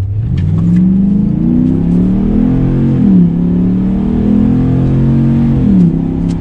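Ram 1500's 5.7-litre Hemi V8 breathing through a K&N performance air intake under hard acceleration from a standstill. The engine pitch climbs, drops sharply at a gear change about three seconds in, then climbs again and drops at a second upshift near the end.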